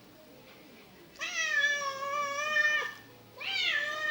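Cat meowing twice: one long drawn-out meow, then a second meow that starts high and slides down, beginning about three seconds later.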